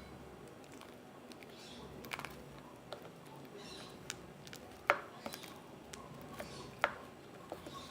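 Homemade glue slime being mixed and worked, giving soft sticky squelches and scattered sharp little clicks, the loudest about five and seven seconds in.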